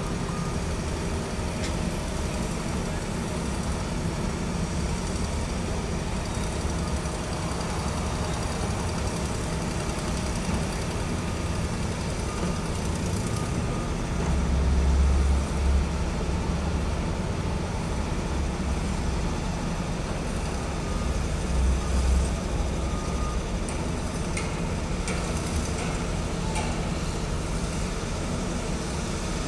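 Steady low rumble of heavy truck engines and road traffic, with two louder low swells, about 14 and 22 seconds in.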